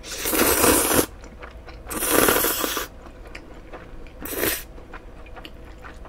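A person slurping cold, sauced bibim-myeon noodles off chopsticks: two long slurps of about a second each, then a short one about four seconds in, with quiet chewing between.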